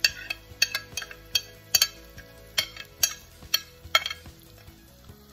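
A spoon clinking against a glass bowl as canned corn is scraped out into a frying pan: about a dozen sharp clinks, irregularly spaced.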